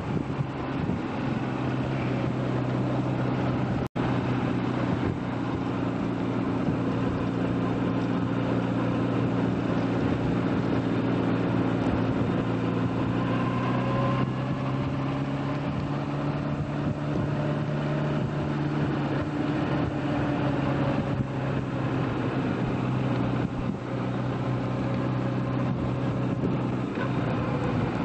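Motorcycle engine running at a steady cruise, heard from the pillion seat with a steady rush of noise over it. The sound cuts out for an instant about four seconds in.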